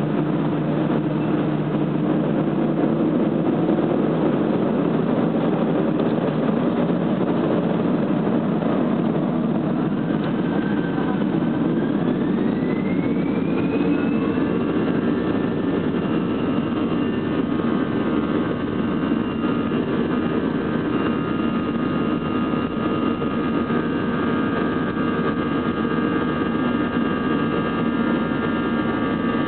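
Airbus A320 jet engine heard from inside the cabin while taxiing: a steady rumble, then about eleven seconds in a whine rises in pitch and holds as the engine's thrust increases.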